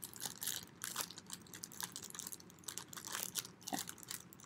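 Clear plastic baggie crinkling and crackling in the hands as a wet paper towel is worked into it: faint, irregular crackles, busiest in the first second or so.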